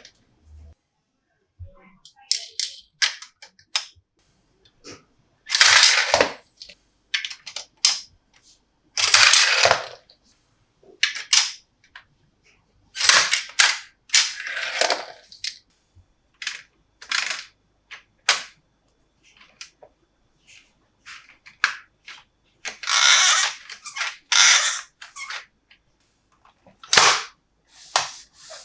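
Hands handling plastic toy pieces and packaging: irregular sharp clicks and snaps between several crinkly rustles, each about a second long.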